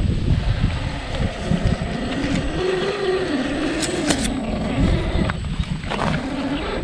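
Scale RC crawler's electric motor and drivetrain whining, the pitch rising and falling as the throttle is worked, over a steady low rumble.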